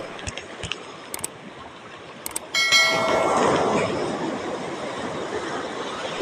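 Wind and water rushing on a boat at sea, with a few light clicks. About two and a half seconds in, the rush suddenly gets much louder, with a brief pitched hum over it that fades within about a second and a half.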